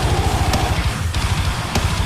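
Thrash metal song playing, with a very fast, even drum beat pounding in the low end.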